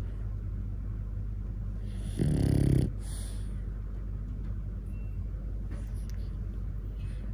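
French bulldog snoring while dozing: one loud snore about two seconds in, lasting over half a second.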